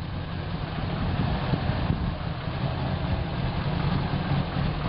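Land Rover Series III engine running at low revs while the vehicle manoeuvres slowly.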